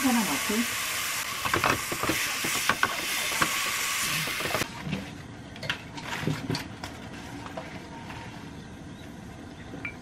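Enoki mushrooms sizzling in a hot frying pan as soy sauce is poured over them, a loud, even hiss that cuts off about halfway through. After that come quieter light clicks and rustles as rice paper and its packet are handled on a wooden cutting board.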